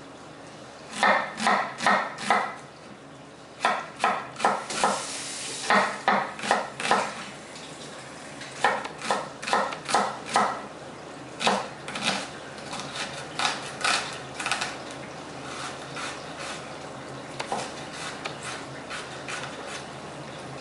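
Metal utensil clinking against a bowl or dish in quick runs of ringing strokes, about three or four a second, becoming lighter and scattered in the last few seconds.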